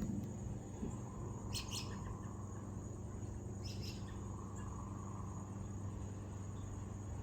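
A bird chirps in two short bursts about two seconds apart, over a steady low hum and a thin, steady high tone.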